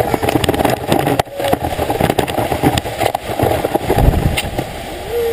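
Sledge sliding over snow: a loud, rough scraping rumble full of small knocks and rattles, close to a camera fixed low on the sledge. A brief squeak near the end.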